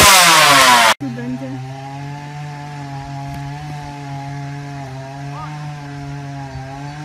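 A two-man chainsaw's engine running loud at high revs, its pitch falling as it winds down, cut off abruptly about a second in. Then a chainsaw engine running steadily at an even pitch, much quieter.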